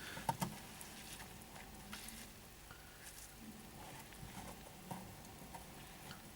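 Faint water trickling and dripping out of a washing machine's open drain-filter housing into a pan, with a few small scattered ticks. The flush water is clearing the rest of the sludge from a partly blocked drain.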